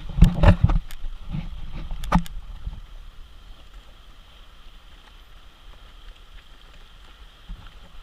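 Stand-up paddleboard paddling: several sharp splashes and knocks of the paddle in the first second and another about two seconds in, then a fainter steady wash of water.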